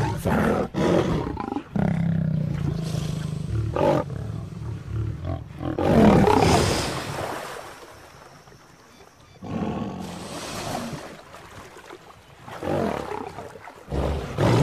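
Male lion growling and roaring at a crocodile in repeated bouts, with a quieter stretch a little past the middle before the bouts resume.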